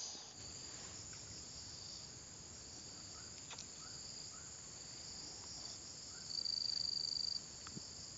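Insects buzzing in a steady high-pitched drone, with a louder, even high trill for about a second near the end. A few faint ticks sit underneath.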